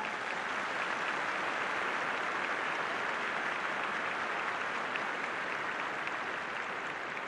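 A large stadium crowd applauding, a dense steady clapping that builds up over the first second and then holds.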